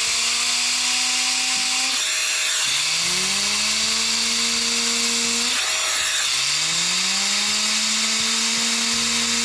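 ICANZUO TAD06 battery-powered air duster blowing steadily at full tilt, a loud rushing whine, aimed at a loose computer case fan. Under it the fan's hum rises in pitch as it spins up in the airstream, levels off, then breaks off suddenly and builds up again, about three times.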